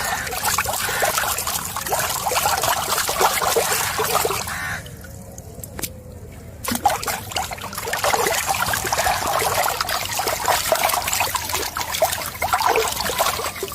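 Water splashing and trickling in an irregular, crackly stream, with a lull of about two seconds near the middle.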